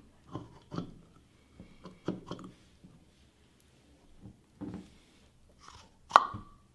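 A soap dispenser with a pump head being handled: soft knocks and rubs as it is turned and gripped, then near the end one sharp click with a short ring.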